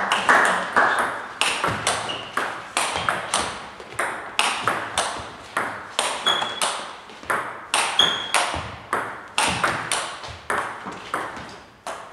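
Table tennis balls bouncing off tables and bats, a rapid, irregular run of sharp clicks from rallies on several tables at once, with a short echo from the hall.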